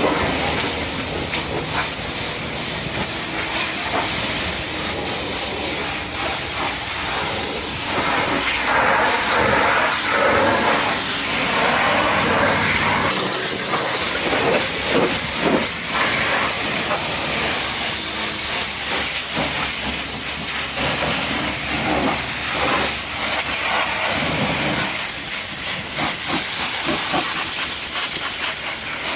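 Pressure washer spraying water against a muddy truck: a loud, steady hiss whose texture keeps shifting as the spray moves over different surfaces.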